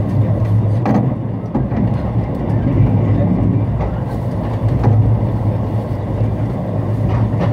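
Mugunghwa-ho passenger train running on the rails, heard from inside the coach: a steady low hum with occasional clicks of the wheels over the track.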